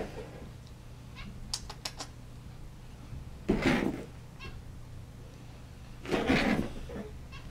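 Pet rabbit growling in two short bursts, about three and a half seconds in and again about six seconds in, while it fights a feather duster: angry, aggressive growls at the duster. A few light clicks come around a second and a half in.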